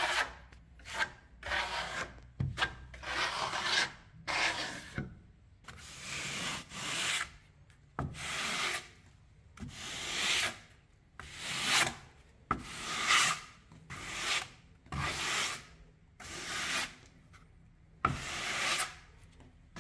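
Plastering tools scraped over a wall of decorative plaster in repeated rough strokes, about one a second: a steel trowel spreading the plaster, then a flat hand float rubbed across the surface.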